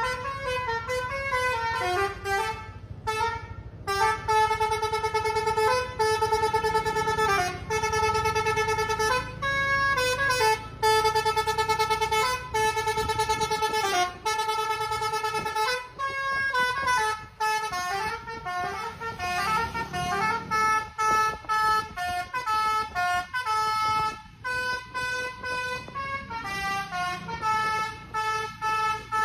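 Bus fitted with a Basuri 'telolet' musical horn playing a tune of held notes that step up and down in pitch, with a low rumble underneath.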